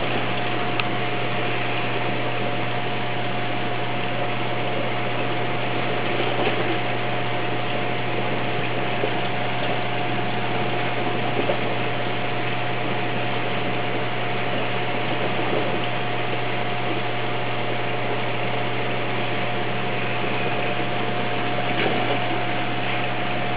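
Reef aquarium pumps and circulating water running steadily: an even rush of water noise over a constant low hum, with a thin steady tone above it.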